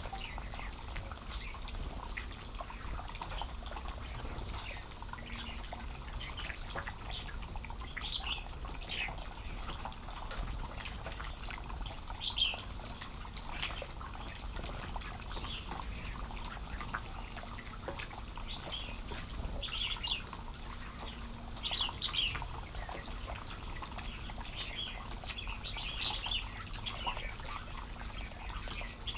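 Bulbuls calling with short, high chirps, scattered and coming in little clusters, over light dripping and splashing of water at a shallow pond where the birds drink and bathe.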